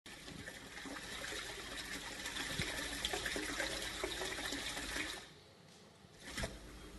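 Running, splashing water that cuts off abruptly about five seconds in, with a brief burst of noise shortly before the end.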